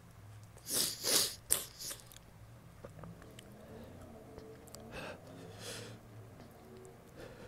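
A person sneezing: a quick cluster of loud, sharp sneezes about a second in, followed by softer sniffs and breaths. The sneezing fit is set off by nasal irritation from a heavy spray of Glade air freshener.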